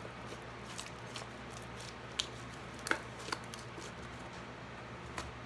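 Putty-like homemade slime being handled: a few soft, scattered clicks and squelches over a steady low hum.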